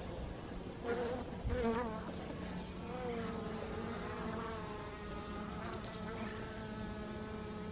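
Honeybees buzzing around the hive entrance: a steady hum whose pitch rises and falls as single bees fly close past, notably about a second in and again near two seconds and three seconds.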